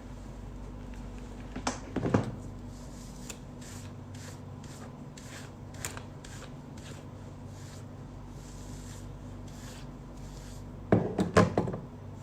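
Handling noises over a steady low hum: faint rubbing and scraping throughout, with a few knocks about two seconds in and a louder cluster of knocks near the end.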